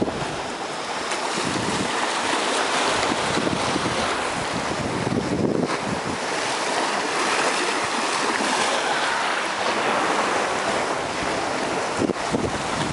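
Sea surf washing over rocks and through shallow water: a steady rushing hiss.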